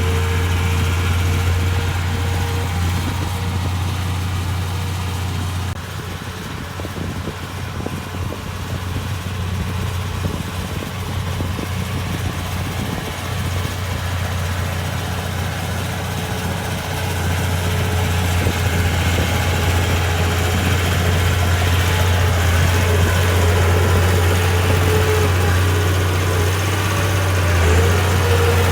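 Komatsu D31P bulldozer's diesel engine running steadily with a deep, even hum, easing somewhat for a stretch in the middle and then picking up again.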